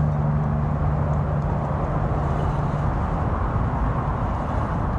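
Steady rushing and rumbling of wind on the microphone at an open shoreline, with a low steady hum over roughly the first three seconds.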